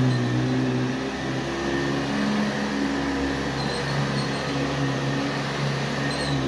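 Hoover-built JCPenney boxtop Convertible upright vacuum cleaner running steadily, its motor and fan humming. The machine has no drive belt fitted.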